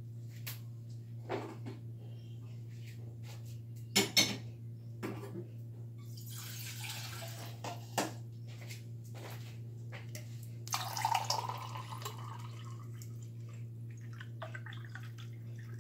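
Cookware handled on a gas stove: scattered clanks and knocks of pots and a kettle, two of them loud about four seconds in. Water runs briefly twice, about six and eleven seconds in. A steady low hum runs underneath.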